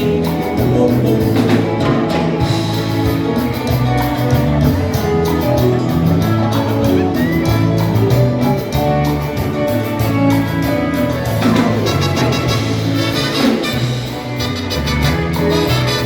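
Live band playing upbeat Latin dance music with a steady beat, in an instrumental stretch without singing.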